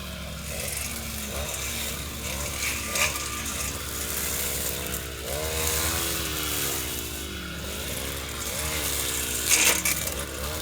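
Lawnmower engine running under changing load, its pitch rising and falling again and again as it cuts, with a steady low hum beneath. Two brief sharp clatters, about three seconds in and near the end.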